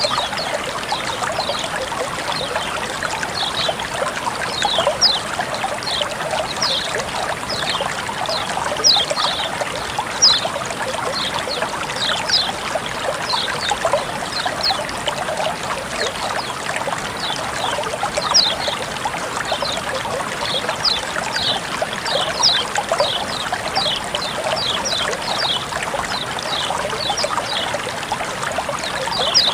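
Running water trickling and splashing steadily, with many short, high, falling notes scattered throughout.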